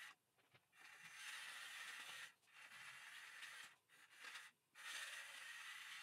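Near silence: a faint steady hiss that cuts out briefly four times.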